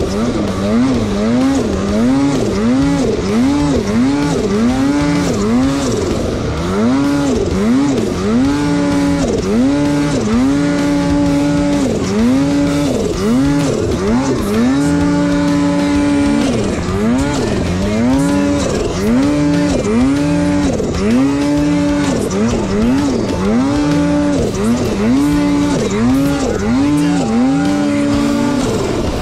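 Polaris snowmobile engine revving hard and easing off over and over, its pitch rising and falling about once a second, as the throttle is worked to keep the sled moving through deep powder.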